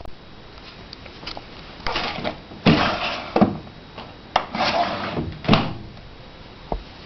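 A run of handling sounds: a few sharp knocks, each followed by a short scrape or rustle, about five in all, then a last small knock near the end.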